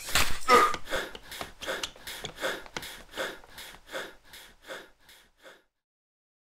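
A man gasping in short, even bursts, about three a second, that grow fainter and then stop about five and a half seconds in.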